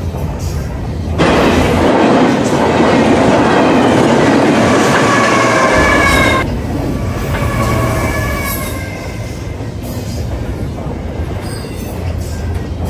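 Double-stack intermodal freight cars rolling past: steady rumble and clatter of steel wheels on the rails, with high wavering wheel squeal at times. A louder stretch begins abruptly about a second in and cuts off about six seconds in.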